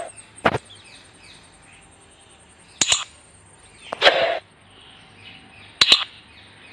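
Sound effects for an animated subscribe button: four short, sharp click-and-swish effects about one to two seconds apart over a faint hiss. One comes as the cursor clicks the button.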